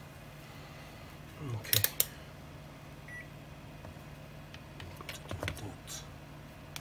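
Clicks and knocks as a digital multimeter is handled and set up to test a tweeter's voice coil, two sharp clicks just before two seconds in being the loudest, with a brief faint beep from the meter about three seconds in and a few softer clicks later.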